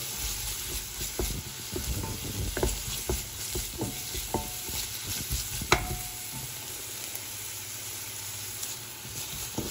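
Diced onions sizzling in oil in a stainless steel pot while a wooden spatula stirs and scrapes against the pot's base. The scraping pauses for a couple of seconds near the end while the sizzling goes on.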